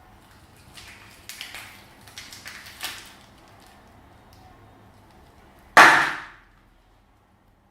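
Slime being squeezed and worked by hand: soft crackling and squishing in the first few seconds, then one loud squelch about six seconds in that dies away quickly.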